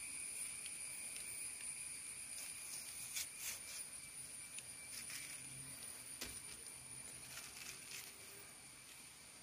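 A metal spoon scraping and clicking faintly against soft cucumber flesh as the seeds are scooped out, over a steady high-pitched whine.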